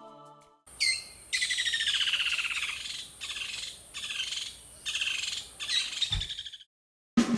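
A bird singing: a series of high, rapid trilled phrases separated by short pauses, stopping abruptly near the end.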